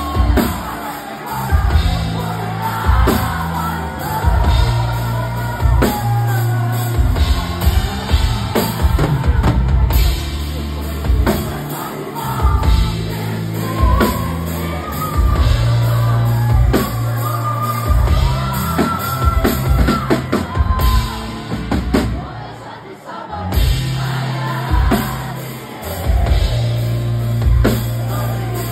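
Live rock band playing loud: a singer singing into a microphone over drum kit and electric guitars. The band briefly drops back about three-quarters of the way through.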